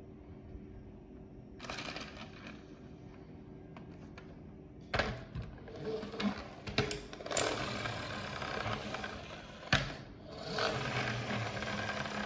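Plastic toy rescue helicopter being handled: a few sharp plastic clicks and knocks, then two stretches of mechanical whirring, the second starting near the end.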